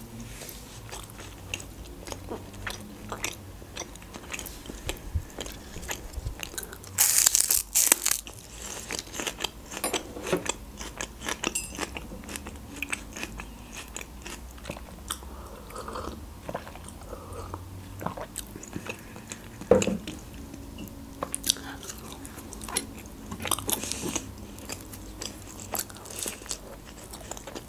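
A person eating close to the microphone: chewing and biting food, with many small wet mouth clicks. A brief louder burst of noise comes about a quarter of the way in, and a single knock about two-thirds through.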